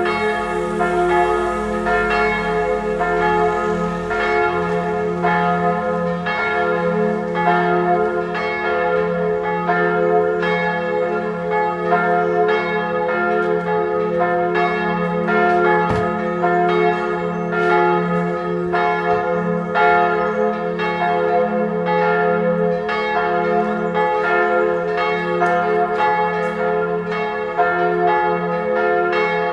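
Full peal of three church bells ringing together: two 1979 Perner bells tuned to f¹ and a-flat¹ and a small b² bell. They form a minor-third motif topped by a high cymbal bell. The strikes overlap continuously over the bells' held humming tones.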